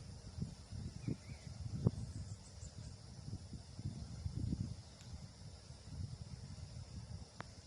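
Wind buffeting the microphone in uneven gusts, a low rumble that rises and falls, with a faint steady high-pitched hiss underneath and a couple of light clicks.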